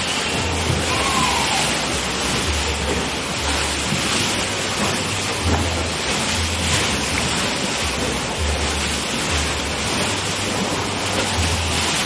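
Artificial wave pool waves surging and breaking against the pool wall: a loud, steady rush of crashing, splashing water. Underneath, a low hum comes in pairs of short pulses about every three seconds.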